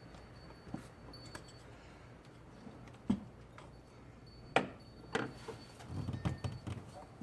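Tools and airbox parts being handled under the hood: a few scattered clicks and knocks, the sharpest about four and a half seconds in, with a quick cluster of knocks near the end.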